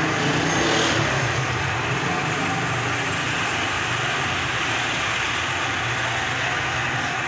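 Motorcycle engines running and passing close by on a busy street, over a steady wash of traffic noise, slightly louder about a second in.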